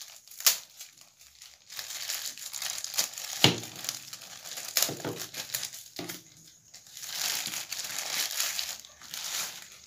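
Thin clear plastic bag crinkling and crackling in irregular bursts as a TV remote control is unwrapped from it, with a few sharper snaps, the loudest about three and a half seconds in.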